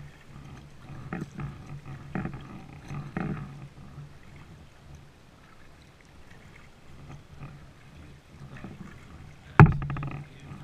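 Kayak paddle strokes in the water, about one a second for the first few seconds, then a quieter spell and a single sharp knock near the end.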